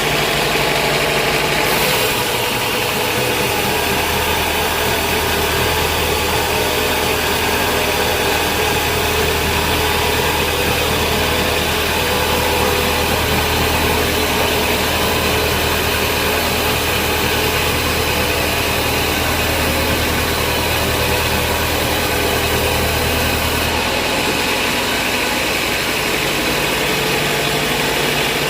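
Sawmill band saw machinery running steadily with a dense mechanical noise. A deeper low hum joins about two seconds in and drops away near the end.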